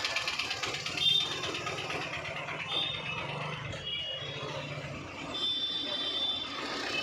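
Street traffic in slow, congested movement: motor engines running with a steady hum of vehicles, and short high-pitched tones now and then.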